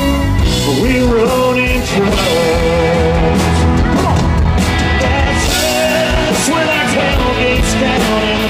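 Live country band music with an amplified piano and a singing voice, through a concert sound system.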